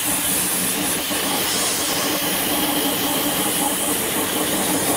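Pressure washer spraying a jet of water onto a car's exhaust tips: a loud, steady hiss of spray with a faint low hum underneath.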